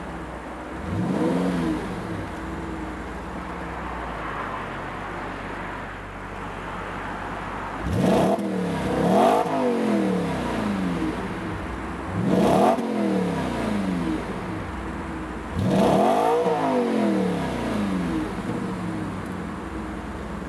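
Audi RS5's stock sports exhaust at idle, blipped several times. Each rev rises and falls back quickly, the last one held a little longer.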